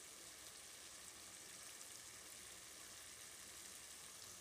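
Faint, steady sizzle of garlic cloves frying in sesame oil in a kadai.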